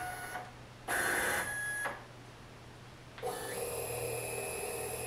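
CNC machine's stepper motors whining as the axes are jogged in short moves. A brief burst comes at the start and another about a second in that lasts about a second. A longer steady move begins about three seconds in and steps up in pitch shortly after it starts.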